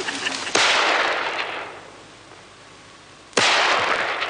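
Two shotgun shots about three seconds apart, each a sudden blast that dies away over about a second.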